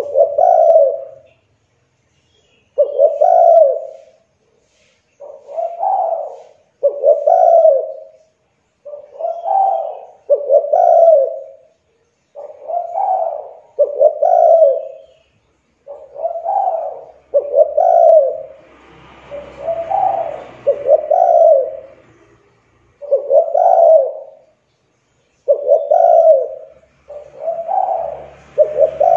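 Spotted dove (tekukur) cooing steadily, repeating its phrase about every two seconds, each phrase a quick run of two or three low notes. This is the kind of continuous calling used as a lure to get other caged doves to start singing.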